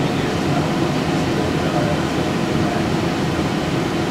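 Steady running noise of cinema projection-booth machinery: a 70mm film projector with its lamphouse cooling and ventilation, an even mechanical whirr with no breaks.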